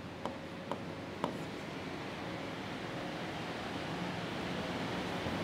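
A few light taps of a stylus on an interactive board screen in the first second and a half, over a steady hiss that slowly grows louder.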